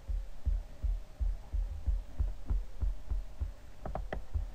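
Dull low thumps repeating unevenly, two or three a second, with a few short sharp clicks near the end.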